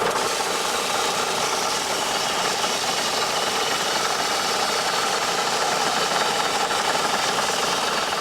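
Motor-driven polishing machine running steadily at constant speed as a steel switch plate is worked on it, with a steady whirring hum and a dusty rushing noise.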